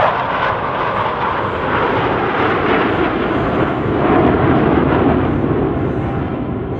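Jet engine roar from a formation of J-10 fighter jets flying a loop, a steady rushing noise that swells and fades slightly.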